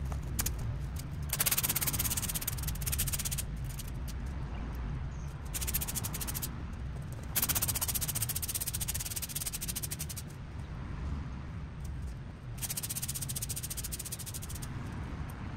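Leaf rake scraping through dead plant debris and gravel track ballast, in four stretches of one to three seconds with short pauses between.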